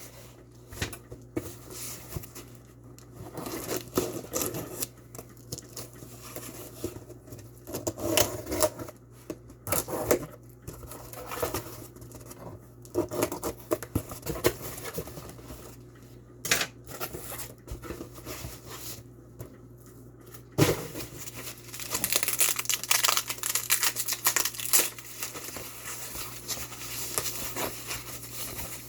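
Shipping package being opened by hand: tape and cardboard tearing and packing material crinkling, with scattered scrapes and knocks. The rustling becomes denser and continuous about two-thirds of the way in.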